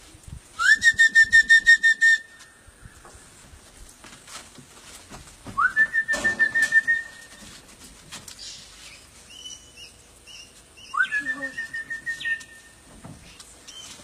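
Three trilled whistle calls used to summon parrots, each sliding up into a warbling tone held for about a second and a half, spaced about five seconds apart.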